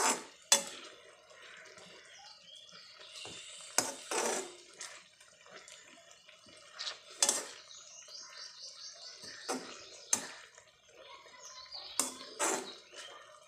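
A metal spoon stirring rose petals and mint leaves boiling in water in a metal kadhai, knocking against the pan about seven times, over the low bubbling of the boiling water.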